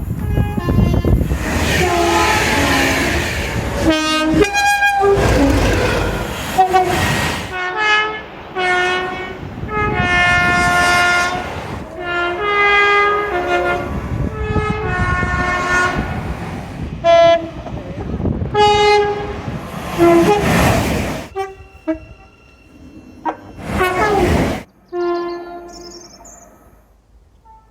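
A string of British train two-tone air horn blasts from different trains, often sounding a high and a low note in turn, over the rumble and clatter of trains passing for the first several seconds. The blasts fade to faint tones near the end.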